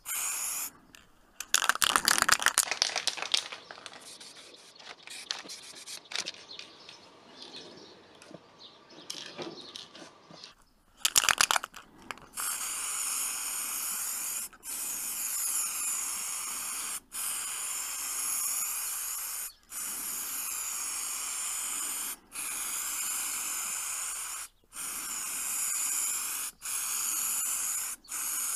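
Aerosol spray paint can shaken, its mixing ball rattling, then sprayed in a series of hissing passes of about two to three seconds each, with short breaks between them.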